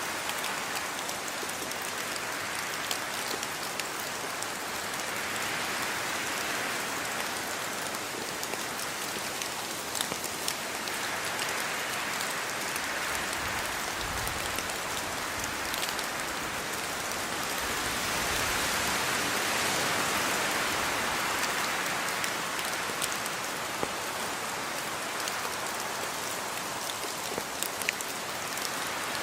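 Steady rainfall, its hiss slowly swelling and easing in waves, with scattered sharper ticks of individual drops striking a surface.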